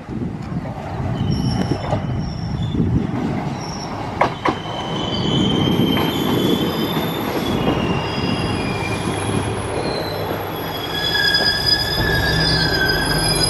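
Diesel railcar pulling into a station and braking, with thin high-pitched squeals from about four seconds in and two sharp clicks around then. Its engine's low steady hum grows near the end as it passes beneath.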